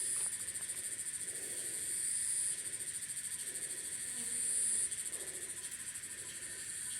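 Steady high-pitched chorus of insects, a rapid pulsing trill that swells and eases a few times.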